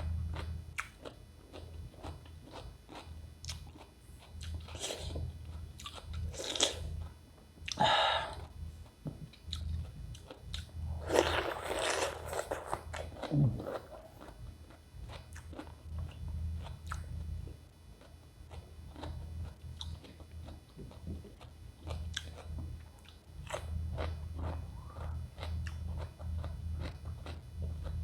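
Raw cucumber being bitten and chewed close to the microphone: a steady run of crisp crunches. A longer, louder noisy stretch comes a little before the halfway point. A low hum runs underneath.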